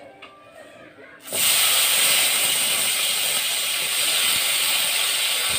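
Raw potato wedges dropped into hot oil in a wok, setting off a loud, steady sizzle that starts suddenly a little over a second in.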